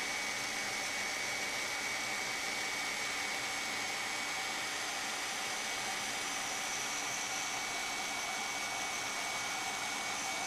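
Handheld embossing heat tool running steadily: an even blowing rush with a thin high whine, as it melts embossing powder on a stamped greeting.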